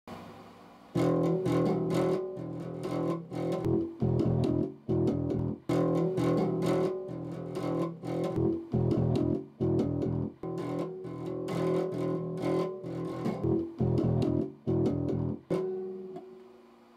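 Electric bass guitar played through an amplifier: a repeating riff of plucked notes that starts about a second in and ends with a last note left ringing near the end.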